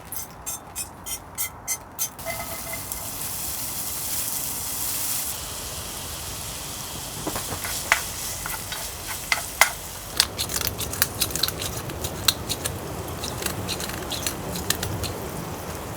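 Food frying in a pan, sizzling with many irregular crackling pops and spatters in the second half. The sizzling opens with a quick run of about seven sharp clicks.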